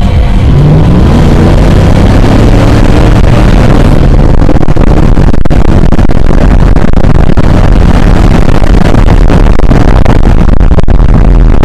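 Dodge Ram pickup's engine under hard acceleration, heard inside the cab: its pitch climbs over the first few seconds, then it holds at high revs under loud, steady wind and road noise.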